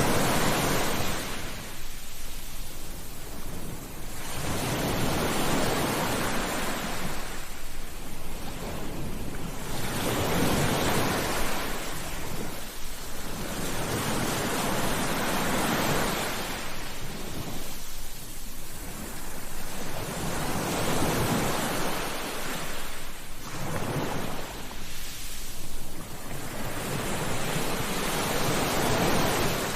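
Ocean surf: waves breaking and washing up the shore, the rush of water swelling and fading about every five seconds.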